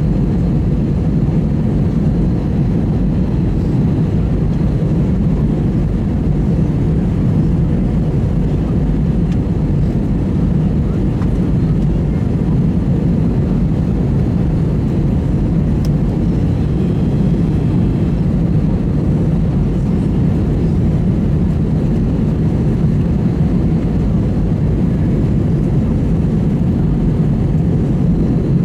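Steady low rumble of Airbus A320 cabin noise, engines and airflow heard from inside the cabin, with no change in level.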